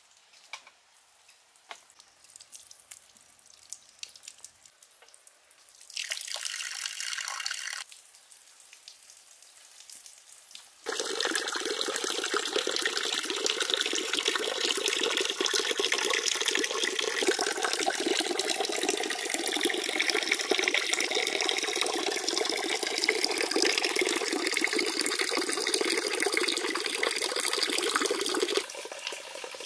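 A thin stream of water falling from a clay statue into a shallow pond, splashing steadily. A few faint ticks at first, a short burst of splashing about six seconds in, then loud continuous splashing from about eleven seconds in that cuts off suddenly near the end.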